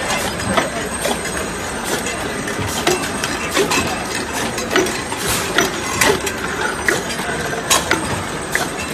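Metal oil cans knocking and clinking against each other and the star-wheel guides as a linear filling machine's conveyor carries them along, over the machine's steady running noise. The sharp knocks come irregularly, roughly one or two a second.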